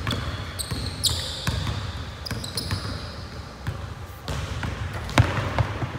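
A basketball bouncing on a hardwood gym floor as it is dribbled, a run of uneven thuds with the hardest bounce about five seconds in, mixed with short high-pitched squeaks of sneakers on the court.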